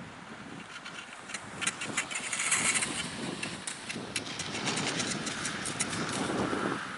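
Cross-country skis sliding and scraping over snow, with a run of sharp clicks and crunches that grows louder about a second and a half in.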